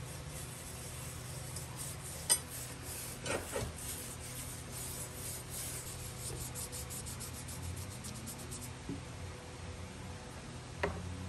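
Scrubbing the rusty steel tang and blade of a WWII Japanese officer's guntō, first with a stiff nylon-bristle brush and then with a cloth: rapid back-and-forth rubbing strokes that stop about eight or nine seconds in. There is a sharp knock about two seconds in, a few softer knocks just after it, and one more near the end.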